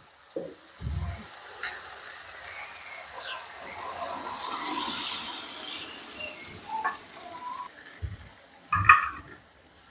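Boiled mustard greens (saag) going into a pan of hot fried masala, hissing and sizzling, the sizzle swelling about four to five seconds in. A few dull knocks, one near the start and two near the end.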